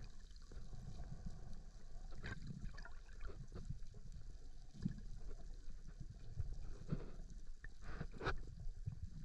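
Muffled underwater sound: a steady low rumble of moving water with a few faint clicks and knocks scattered through it.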